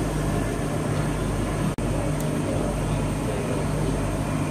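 Steady outdoor background din with a low, even hum underneath, cut by a momentary dropout a little under two seconds in.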